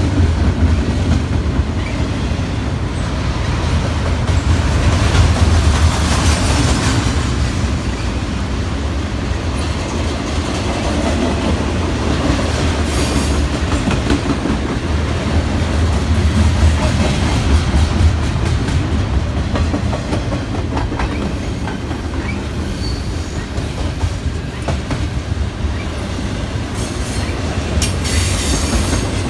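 BNSF double-stack intermodal freight train's container-laden well cars rolling past: a steady heavy rumble of steel wheels on the rails with clacking. A few times, brief high squeals come from the wheels.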